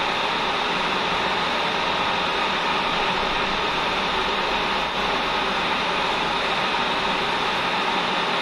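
Electric welding arc running steadily as a bead is laid on an aluminium-looking ATV swing arm, an even hissing buzz that dips briefly about five seconds in.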